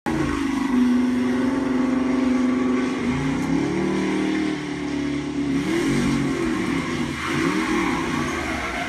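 Car engine revving and accelerating on an action film's soundtrack, played through a TV: a steady engine note for about three seconds, then the pitch climbing and swinging up and down as the revs change.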